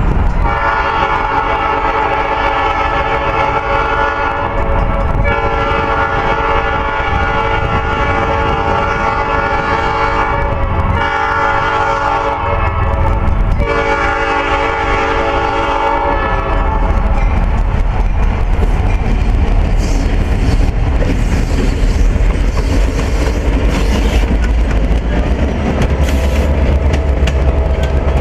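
Diesel locomotive air horn blowing the grade-crossing signal: two long blasts, a short one and a final long one, a chord of several steady tones. After the horn stops, the locomotive's diesel engine rumbles low and its passenger cars pass close by.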